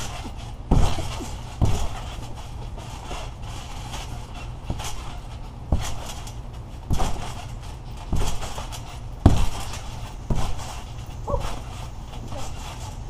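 People bouncing on a trampoline: dull thumps of feet landing on the mat at irregular spacing, roughly one a second.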